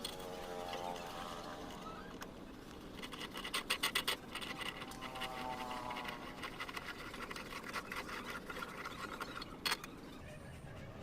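Scratching and scraping, with a quick run of sharp clicks about three and a half seconds in and another single click near the end, over a faint whine that comes and goes.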